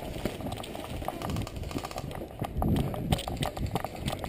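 Quick, uneven footfalls of a person running over dirt and fallen leaves, with knocks and jolts of the body-worn GoPro action camera.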